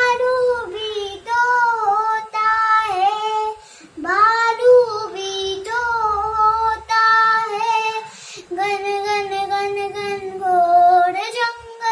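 A young girl singing a Hindi children's song solo, with no instruments, in long held notes across phrases that pause briefly about four and eight seconds in.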